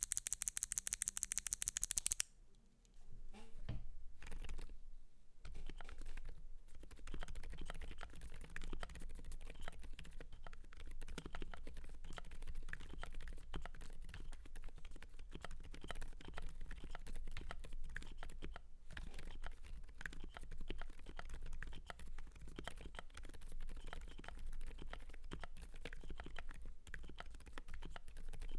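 For about the first two seconds, a fast, very even run of loud sharp clicks. From about three seconds in, continuous typing on an FL.eSports FL980 mechanical keyboard fitted with lubed Gazzew Boba U4 silent switches, giving muted keystrokes whose energy sits low, with a brief pause a little past the middle.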